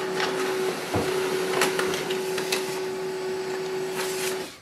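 HP LaserJet M234sdwe laser printer printing a page: a steady mechanical whir with a constant hum and scattered clicks, which cuts off suddenly near the end as the sheet is fed out. It is the page sent over Wi-Fi to confirm that the printer is connected.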